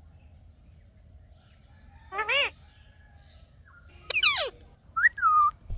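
Indian ringneck parrot giving three short, loud, shrill calls with sharply bending pitch, about two seconds in, near four seconds and near five seconds.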